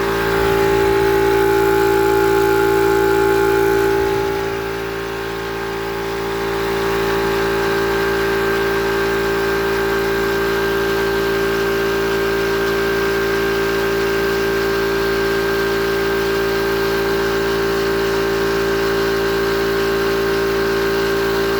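Yong Heng high-pressure air compressor running with a steady mechanical hum and whine. It is a little louder for the first few seconds, dips briefly about four seconds in, then settles to an even run.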